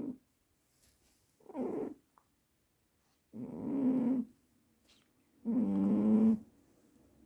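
A deeply sleeping cat snoring, one pitched snore about every two seconds with quiet breaths between, the snores growing longer and louder near the end.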